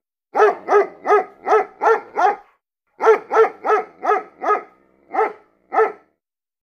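A dog barking, about three barks a second, in two runs of six or seven barks with a short pause between, stopping near the end.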